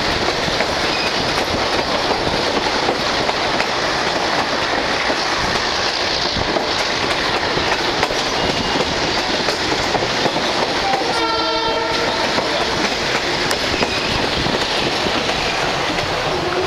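Passenger train running along the track, heard from an open carriage window: a steady loud rumble and clatter of wheels on rails. A short horn blast of about a second sounds a little past the middle.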